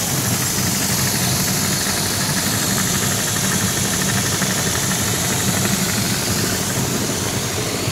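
Homemade belt-driven grain-suction blower, powered by an electric motor, running steadily while pulling grain through a ribbed suction hose. It makes a loud, even hum with a hiss over it.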